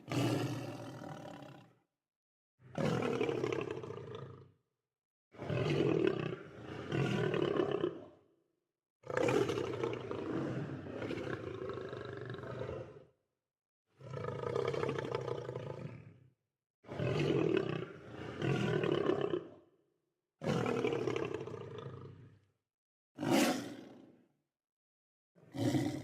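Lion roars and growls: about nine separate calls of one to four seconds each, with dead silence between them. The shortest comes near the end.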